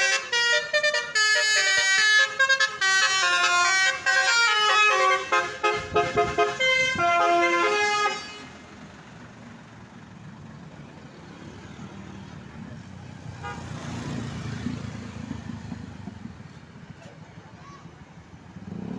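Bus telolet basuri horn playing a rapid tune of stepped, bright notes, stopping about eight seconds in. After that there is a low engine and road rumble that swells and fades.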